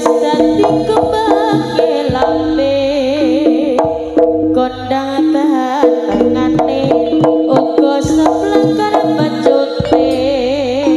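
Live jaranan band playing: kendang hand drums beating a steady rhythm under gamelan instruments and a wavering melody line.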